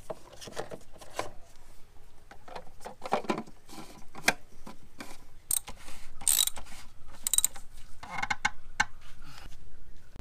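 Hand socket ratchet clicking in short irregular runs as a fastener is turned back in during reassembly after an oil change.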